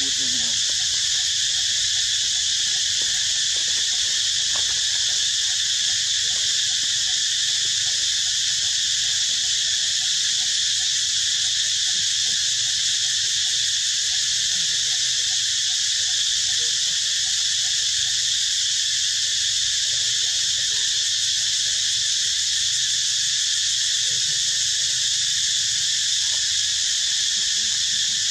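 Loud, steady chorus of insects: a continuous high buzzing drone that holds at one level without a break.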